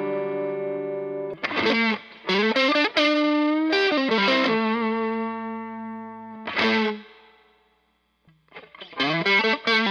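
Electric guitar played through a Way Huge Camel Toe distortion pedal into a Fender Blues Junior amp. A held chord rings out, then comes a phrase of picked notes and bends and a long sustained note. The playing stops briefly and starts again near the end.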